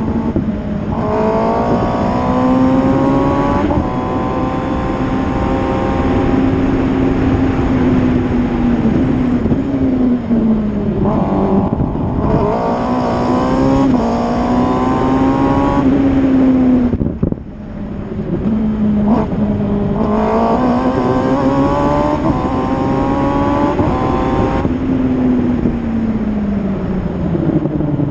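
Single-seater racing car's engine driven hard, heard from the car itself. The pitch climbs through the gears with sharp drops at each change. About two-thirds of the way through the throttle is closed abruptly, then the engine pulls hard again, and it winds down near the end.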